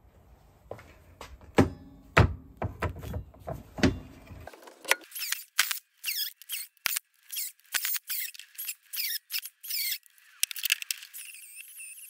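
A few knocks and clicks as metal castings are handled. Then a DeWalt angle grinder's cut-off disc screeches against aluminium bronze castings in short, rapid bursts of wavering high squeal as it cuts them free. It settles into a longer, wavering squeal near the end.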